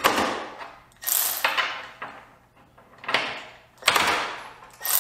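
Milwaukee M12 2457 cordless 3/8 ratchet's motor driven in about five short trigger pulls, each starting sharply and fading, straining against a bolt torqued to 30 ft-lbs that it fails to break loose.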